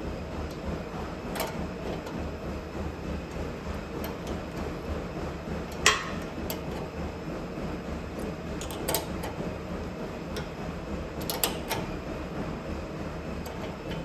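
Treadmill running with a steady mechanical drone, with scattered light clicks and one louder sharp knock about six seconds in.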